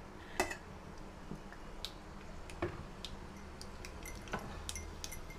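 Mustard seeds and dals frying in hot oil in a nonstick pan, with scattered sharp pops and crackles, roughly one or two a second.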